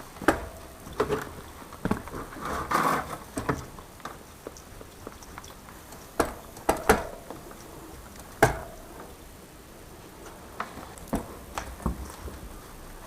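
Bicycle being handled and its cranks worked, giving irregular clicks and knocks and a brief rough rubbing noise about two to three seconds in. There is no squeak from the freshly rebuilt bottom bracket.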